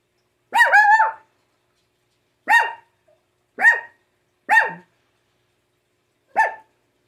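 Small dog barking sharply at a window: a quick double bark about half a second in, then four single high-pitched barks spaced a second or two apart.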